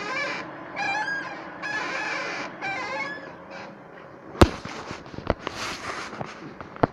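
Ford Focus 3 squeaking as the steering wheel is turned, a pitched creak about once a second, repeated four or five times and fading. Then three sharp knocks, the first the loudest. The cause of the squeak is unknown to the owner.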